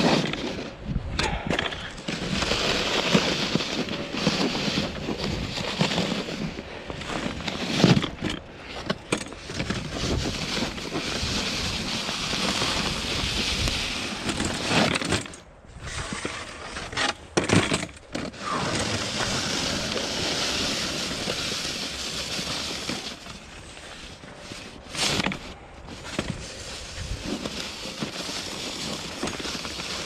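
Snowcaster wheeled snow pusher's 36-inch blade scraping along a concrete sidewalk through a thin layer of snow as it is pushed on its wheels, with a few short breaks.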